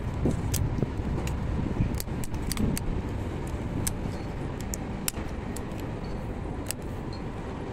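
Steady low outdoor rumble with scattered sharp clicks, several close together around two to three seconds in.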